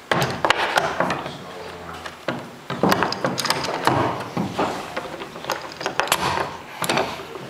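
Steel bar clamps being fitted and tightened on a wooden boat plank, with wooden blocks set under the clamp pads: sharp clicks and wooden knocks that come in several bunches.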